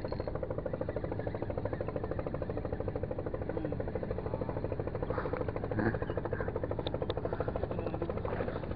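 A steady engine drone with an even, rapid pulse, like a motor running at idle.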